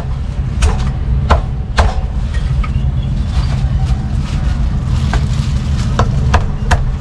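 A heavy cleaver chops through roast meat onto a thick round wooden chopping block: sharp knocks, about three in the first two seconds, a pause, then four more near the end. A steady low rumble sits underneath.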